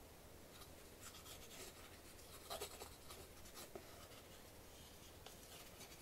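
Faint scratching of a glue bottle's plastic nozzle drawn along thin wooden parts as wood glue is squeezed out, in short strokes with a couple of soft knocks around the middle.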